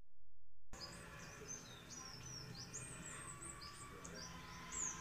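Birds singing in the trees: a busy run of short, high, falling chirps, a few each second, over a soft background hiss.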